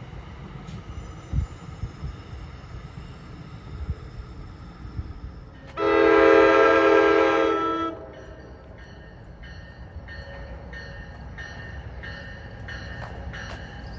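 NJ Transit commuter train rumbling along the rails. Then an approaching train's horn sounds one long, loud blast of about two seconds, followed by a bell ringing about twice a second.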